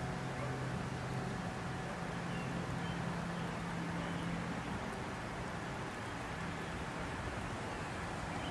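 Steady low hum from a 1959 Pontiac Bonneville convertible while its power top folds down, easing off a little about halfway through.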